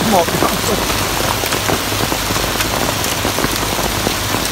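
Heavy rain pouring onto a wet city street: a dense, steady hiss with many close drops ticking sharply.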